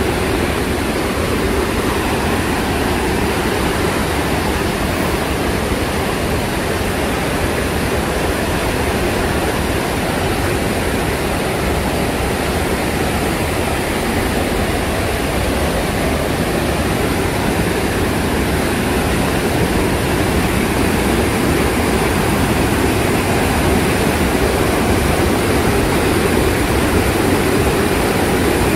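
A fast alpine mountain stream rushing over rocks: a steady, loud roar of white water that grows slightly louder near the end.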